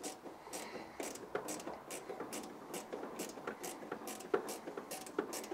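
Metal-on-metal clicks of an open-end wrench working the 13 mm nut at the top of a scooter's rear shock absorber, about three short clicks a second as the nut is turned off while the piston rod is held still.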